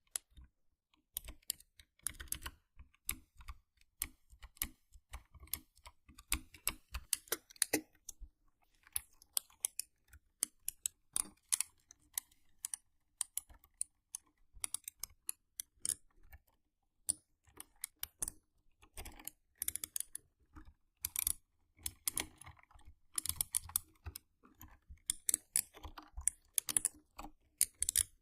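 Mechanical keyboard keys being typed, close up: fast, irregular clicking in runs, with a couple of brief pauses.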